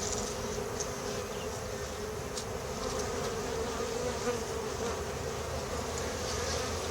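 Honeybee colony buzzing in a steady hum around frames lifted from an open hive during an inspection.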